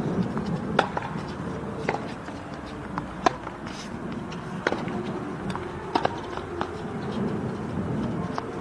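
Sharp, irregular taps of a tennis ball being struck and bouncing on a hard court, about one a second, over a steady low background hum.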